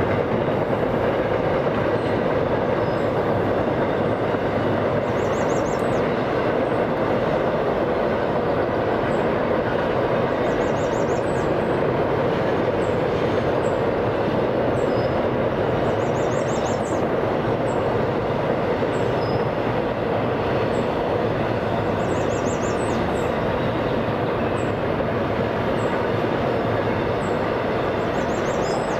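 Intermodal freight train rolling steadily past, its well cars loaded with containers and truck trailers: a continuous, even rumble of wheels on rail with no break. A faint high chirp repeats about every five or six seconds.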